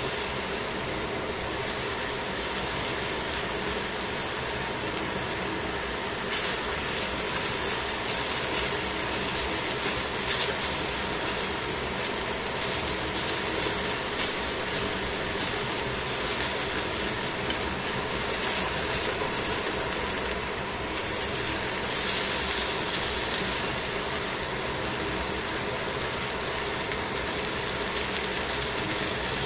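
Chicken thighs, cabbage and carrot sizzling in a stainless steel frying pan, with the tongs clicking against the pan now and then over a steady low hum.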